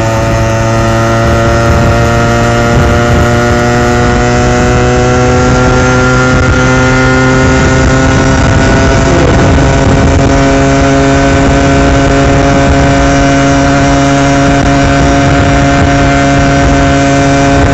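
Yamaha RX100's single-cylinder two-stroke engine running under steady throttle, its note climbing slowly and evenly as the motorcycle gains speed.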